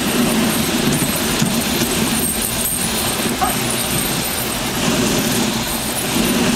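A dog sled running over rough glacier snow: a steady, loud scraping noise from the runners, with the unsprung sled jolting over the uneven surface.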